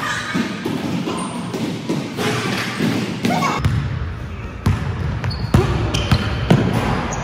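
A basketball dribbled on a hardwood gym floor: sharp bounces about a second apart in the second half, with short high sneaker squeaks. Players' voices and court noise fill the first half.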